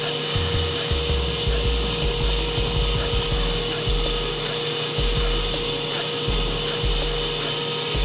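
Bench buffer running with a steady hum while a wooden knife handle is pressed against its spinning cloth buffing wheel, polishing the wood to a shine.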